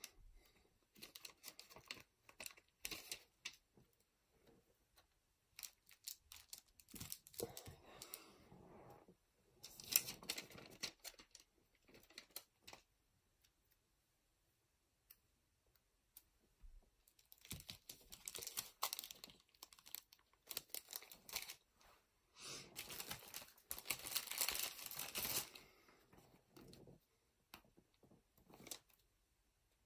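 Clear plastic cello hanger bags crinkling and rustling in short, quiet bouts as they are handled and sealed, with small taps and clicks between.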